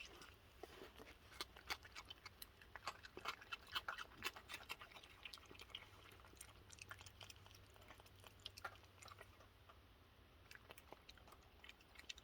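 Raccoons chewing and crunching cookies: quick crisp crunches and clicks, thickest over the first few seconds, then sparser and fainter.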